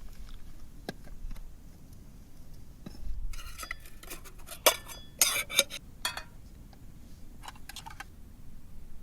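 Metal cookware and utensils clinking and knocking together, a cluster of sharp clinks with a brief metallic ring in the middle few seconds.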